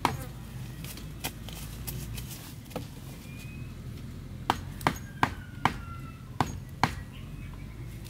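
Small hatchet chopping at a wooden pole: one sharp chop, another about a second later, then a quick run of six blows in the second half.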